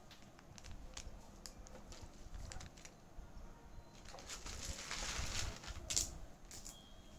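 Bead necklace of small metal balls clicking faintly as it is handled and draped. There is a rustle of handling from about four seconds in and a sharper click near six seconds.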